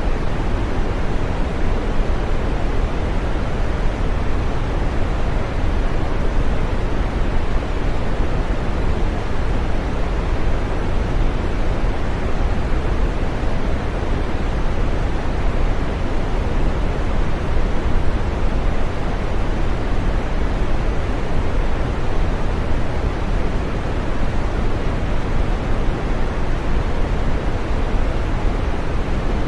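Steady synthetic green noise: an even, unbroken rushing sound with no rhythm or events, fullest in the low and middle range and thinning out toward the top.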